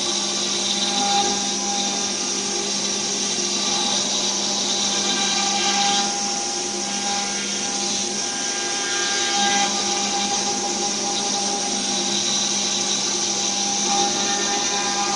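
CNC router spindle running at speed with the bit cutting: a steady high whine over hiss.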